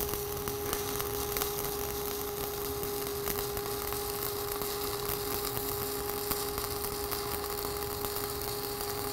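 Stick-welding arc of a 3/32-inch 7018 rod at 90 amps, weaved up a vertical fill pass on steel plate: a steady crackle with frequent small pops. A steady hum runs underneath.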